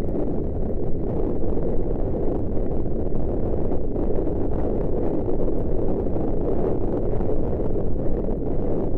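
Wind buffeting a helmet camera's microphone as the horse gallops: a steady, low rushing noise with no let-up.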